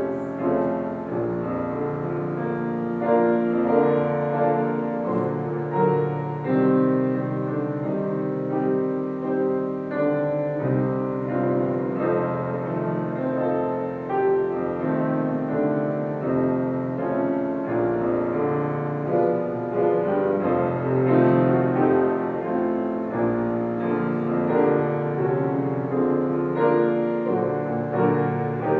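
Instrumental piano music.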